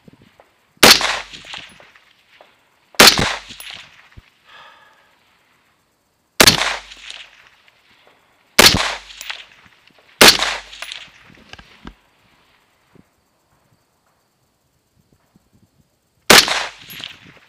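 Six single shots from a scoped JP15 AR-15-style rifle, each a sharp crack with a short echoing tail, spaced irregularly from about one and a half to six seconds apart: slow, deliberate aimed fire from a rest.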